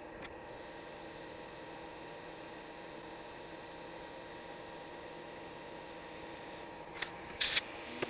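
Steady electrical hum with a thin, high-pitched whine, broken by a faint click and then a short, loud burst of noise about seven seconds in.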